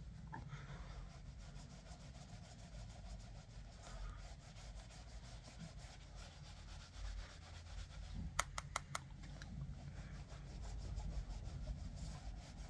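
Angled makeup brush sweeping powder bronzer over the skin: a faint, repeated brushing rub. About eight seconds in, a quick run of four sharp clicks.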